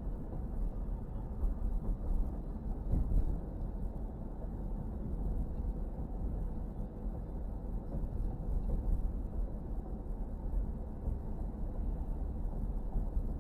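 Steady low rumble of a car on the move: road and engine noise with no big changes, and a few faint clicks about three seconds in.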